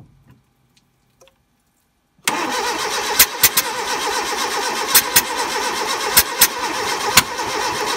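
Carbureted Fiat petrol engine that comes in abruptly about two seconds in and keeps running, with about seven sharp pops, some in close pairs. The pops are the explosions from the carburetor that the owner complains of on starting.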